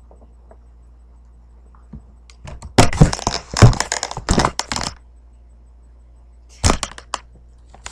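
Loud crackling scrapes and knocks of something rubbing and bumping right against the microphone: close handling noise, in one long burst from about two and a half to five seconds in and a shorter one near seven seconds.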